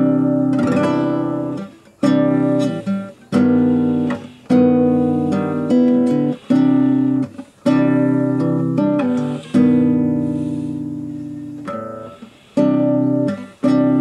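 Acoustic guitar playing slow strummed chords, each chord struck and left to ring out before the next.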